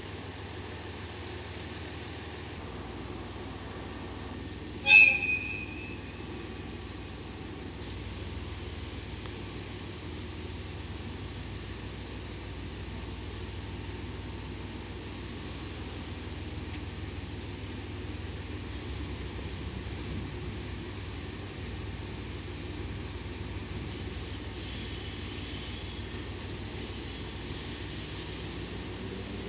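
DD51 twin-engine diesel-hydraulic locomotive running with a steady low drone. About five seconds in it gives one short, loud, high-pitched horn toot. A faint high squeal follows near the end.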